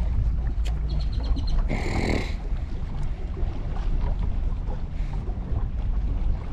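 Low, steady rumble of wind buffeting the microphone on an open fishing boat. A few quick ticks come about a second in, then a short harsh rasp about two seconds in.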